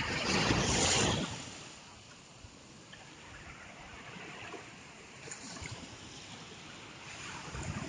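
Sea waves on the shore: one wave breaks and washes loudly in the first second, then the surf goes on more quietly, with smaller surges later on.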